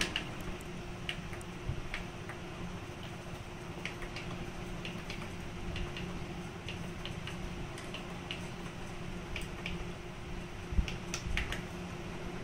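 Plastic keys of a Yamaha PSR-670 arranger keyboard clicking and clattering as they are pressed, with no instrument voice sounding, over a steady low electrical hum. One louder thump comes near the end.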